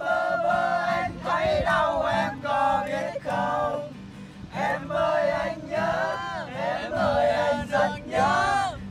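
A group of men singing a song together to an acoustic guitar strummed by one of them, the sung phrases broken by short breaths.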